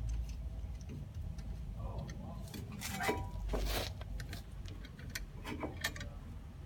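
Irregular metallic clicks and ticks of a C-clamp being worked to press a brake caliper piston back, with a longer scraping stretch about three seconds in.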